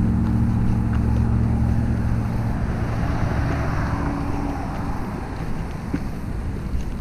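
A steady low motor hum, like an engine running, that fades over the second half, over a steady hiss.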